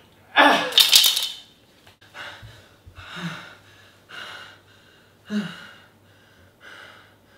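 A young man gives a sharp, loud cry or gasp, then breathes hard and raggedly in pain, a heavy gasping breath about once a second, as if he has just been hurt with a knife.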